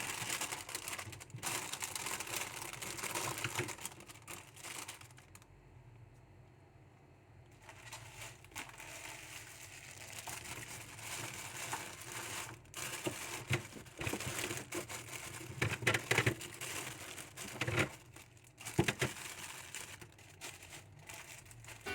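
Plastic grocery bags crinkling and rustling as food is handled, with scattered sharp knocks and clicks. It goes quieter for a few seconds about five seconds in.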